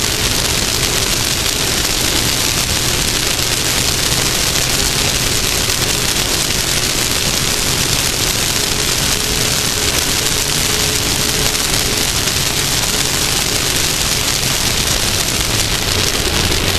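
Off-road race vehicle running at speed, heard from on board: a steady, loud rushing noise with the engine faint beneath it.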